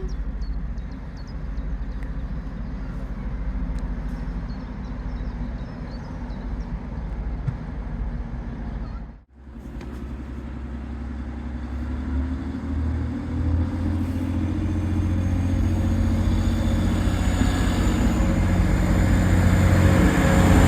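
Train approaching and growing steadily louder, after a steady low rumble that breaks off abruptly about nine seconds in.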